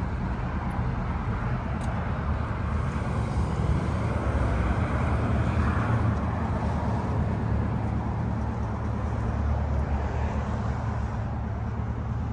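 Steady car engine and road noise, swelling slightly a few seconds in.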